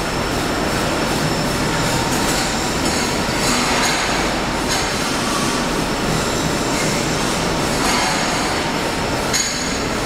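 Automatic CNC steel pipe cutting machine running and cutting steel pipe: a steady, loud mechanical noise with a thin, high metallic squeal.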